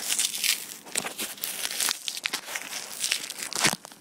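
Taped cardboard box being torn and crinkled open by hand, packing tape and cardboard ripping and rustling in irregular crackly bursts.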